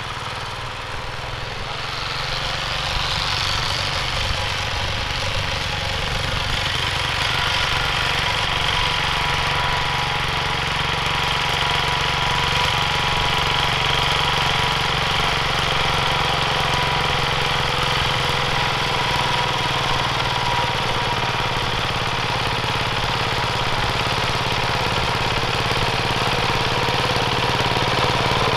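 Yanmar TC14 walking tractor's single-cylinder diesel engine running steadily as it works the soil into beds. It grows louder over the first several seconds, then holds steady.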